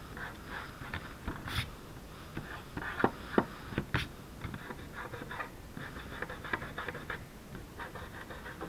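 Fingertips rubbing dried masking fluid off watercolour paper: quiet, uneven scratchy rubbing with scattered small clicks.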